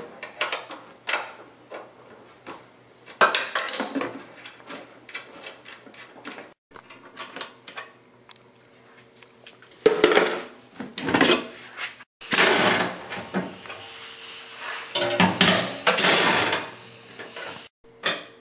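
Metal tools and parts clinking, knocking and rattling during the disassembly of a riding lawn mower: a run of separate sharp knocks, denser and busier in the second half. The sound cuts out abruptly a few times.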